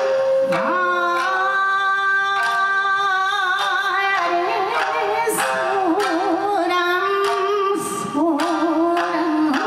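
A woman singing a Japanese folk song (min'yō), holding long notes with wavering, ornamented turns, over a shamisen ensemble striking sharp plucked accents.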